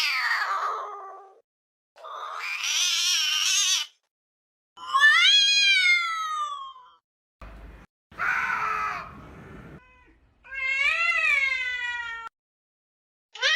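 Cat fight: a run of angry yowls and caterwauls, some harsh and raspy, others drawn-out wavering calls that rise and then fall, each cut off by a short silence.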